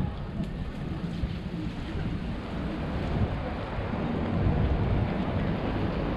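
Wind rumbling on the microphone of a camera riding along on a moving bicycle, a steady low buffeting that slowly grows louder.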